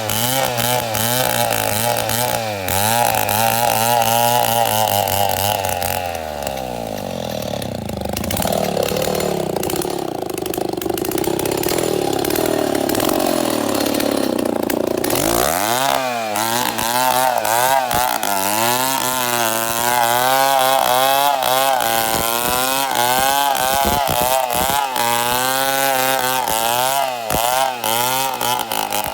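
Two-stroke chainsaw cutting into a baobab trunk, its pitch wavering up and down as the chain bites. A few seconds in it sinks to a lower, rougher note for several seconds, then revs back up and keeps cutting.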